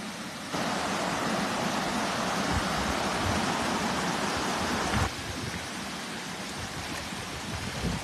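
Steady rush of stream water pouring over a small concrete weir, louder from about half a second in until it drops suddenly near five seconds. A few dull low knocks sound underneath.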